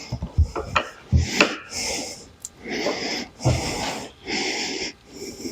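A person breathing hard in quick, noisy breaths about once a second, as if straining at close work, with a few low knocks of handling near the start.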